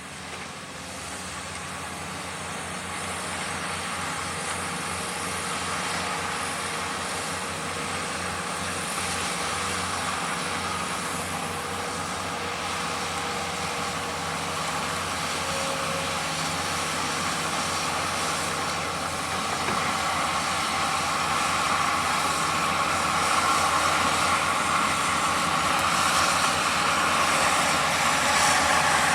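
Heavy equipment's diesel engine running steadily with a low throb, growing gradually louder over the whole stretch.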